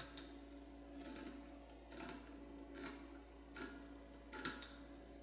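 Scissors snipping through doubled T-shirt cotton, about five short cuts roughly one a second.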